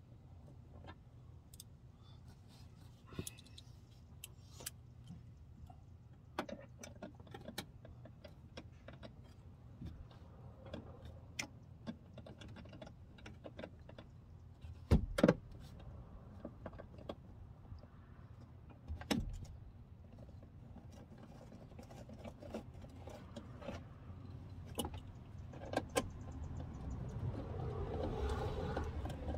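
Metal clicks and clinks of a socket, extension and bolts worked inside a car door as the window glass is fastened to its regulator track, with two louder knocks about halfway through. Near the end a steadier, louder noise builds up.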